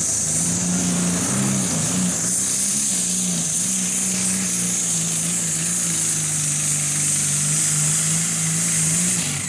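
Light-modified pulling tractor's engine running flat out under load as it drags the sled down the track, one steady engine note with a brief rise about a second and a half in, and a steady high hiss above it.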